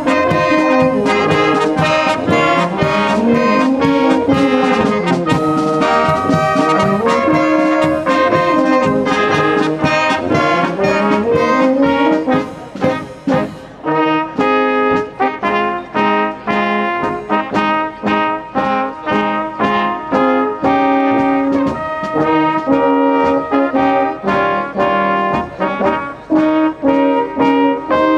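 Brass band music, trombones and trumpets playing a tune, with gliding notes in the first half. About thirteen seconds in, the music changes to shorter, separate notes.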